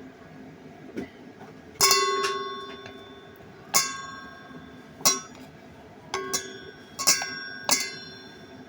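Utensils clinking against ceramic or glass dishware while eating: about eight sharp, ringing clinks at uneven intervals, a few of them in quick pairs, the first ones ringing on longest.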